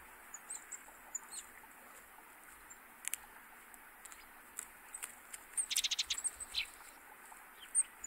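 Small birds chirping faintly in short, high calls scattered through, with a quick run of about ten ticks about two-thirds of the way through and one sharper tick near the end.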